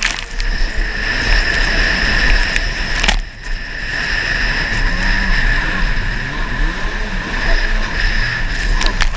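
Stand-up jet ski engine running hard at race speed, heard from on board with water spray and wind rushing over it. About three seconds in the sound briefly drops, and from about halfway on the engine pitch swings up and down as the throttle is worked through the turn.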